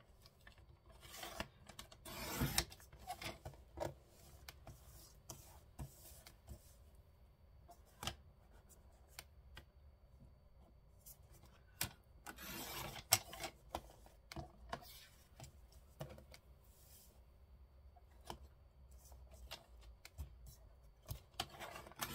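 Faint paper-craft handling sounds: paper rubbing and rustling on a work table, with scattered small taps and clicks. Longer swishes come near the start and again about halfway through.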